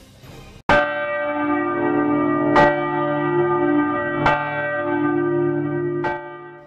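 Church bell tolling: four strikes about 1.7 seconds apart, each ringing on into the next. The ringing cuts off abruptly near the end.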